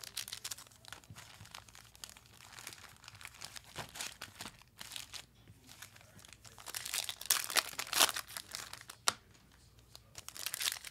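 Plastic wrapping on a trading card box or pack being crinkled and torn open, an irregular run of crackling rustles that grows loudest about seven seconds in.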